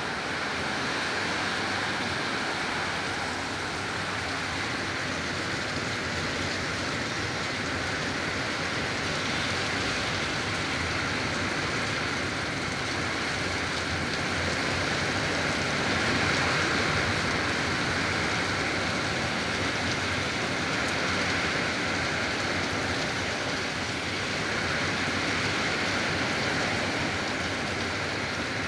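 Heavy rain pouring steadily in a rainstorm, a dense even hiss with no let-up.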